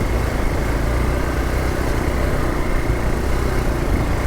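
Hero Xpulse 200 4V's single-cylinder engine running steadily as the motorcycle is ridden, under a continuous noisy rumble.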